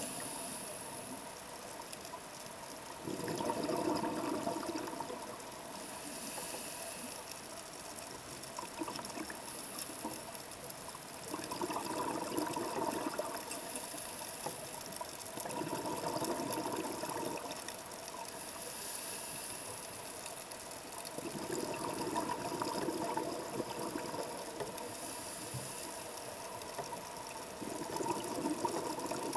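A scuba diver breathing through a regulator in a slow, regular cycle. About every five to six seconds an exhalation sends out a gurgling rush of bubbles, and between some breaths there is a short high hiss as the regulator delivers air on the inhale.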